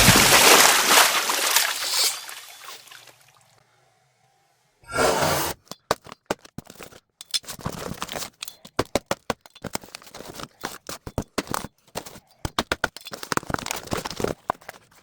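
Knife packaging being handled and opened: a rapid, irregular run of sharp crackles, clicks and scrapes from about five seconds on. Before that, a loud rushing noise fades out over the first three seconds, followed by a brief quiet gap.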